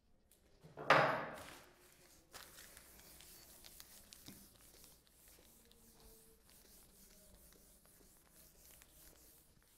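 A felt duster rubbing across a whiteboard, erasing it in soft, continuous strokes with small taps. A brief loud noise comes about a second in.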